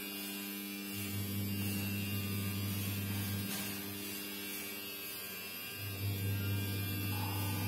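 Steady electrical hum with a buzzy edge. Its deepest part swells about a second in, fades after a few seconds and comes back near the end.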